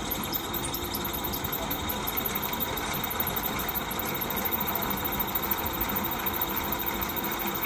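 Electric motor running steadily under heavy load, turning a belt, pulley and gearbox drive to an alternator, with a fast, even ticking over the running noise. The motor is overloaded and struggling to turn the drive, and soon starts to smoke.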